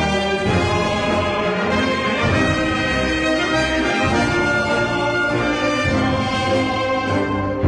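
Orchestral soundtrack music with brass holding long notes.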